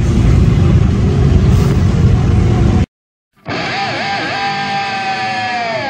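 A loud, low, steady rumble of outdoor background noise cuts off abruptly just under three seconds in. After half a second of silence, background music starts, with sustained notes that waver, hold, and then slide down in pitch near the end.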